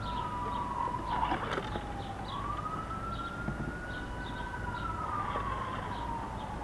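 Emergency-vehicle siren in the distance, wailing with its pitch sliding slowly up and down over a few seconds, with a few light clicks about a second and a half in.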